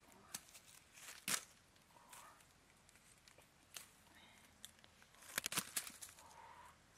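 Leafy branches of a small orange tree rustling, with sharp snaps and clicks as the fruit is pulled off its stems: one strong snap about a second in and a quick cluster of them near the end.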